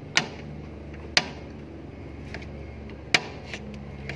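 Steel hammer striking the end of a screwdriver wedged against a reach truck's differential housing, driving it in to open the casing. Three sharp metallic blows at about a second apart and near the three-second mark, with lighter taps between.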